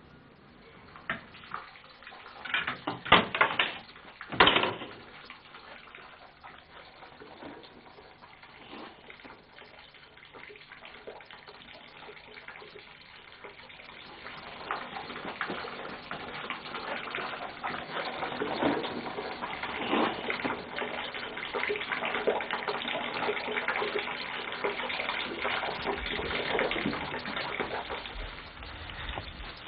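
Food sizzling in a frying pan: a steady crackling hiss that swells in about halfway through and keeps going. A few knocks and bangs come in the first few seconds.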